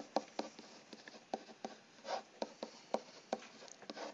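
A stylus tapping and scratching on a hard tablet surface as an equation is handwritten: a run of quick, irregular light taps and short strokes.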